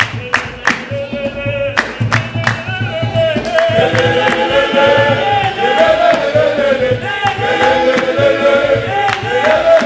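Men's choir singing together in harmony, with hand claps keeping the beat; the voices fill out and grow louder about three and a half seconds in.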